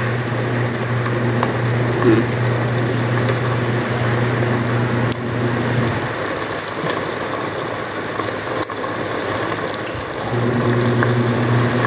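A steady low machine hum over a hiss. The hum drops out for about four seconds midway and then returns, with a few sharp clicks.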